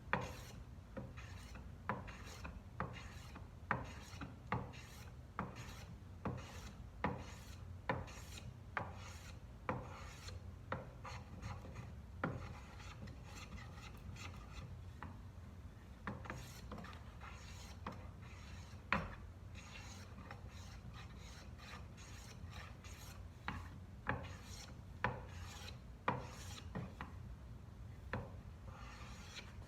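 Block plane taking repeated strokes along a wooden edge: a short scraping swish about once a second, with a couple of brief pauses. The plane is taking down the peaks between table-saw facets to fair them into a roundover.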